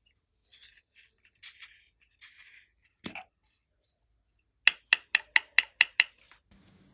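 Soft scattered rustling and a single knock, then a run of seven quick sharp clicks, about five a second.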